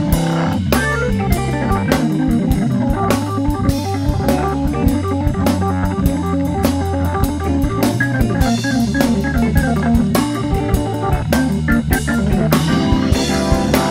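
Soul-jazz organ combo playing a blues: Hammond organ with a moving bass line and drums keeping a steady swing.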